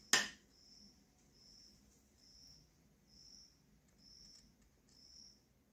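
A short knock right at the start, then a cricket chirping faintly, one high chirp about every second.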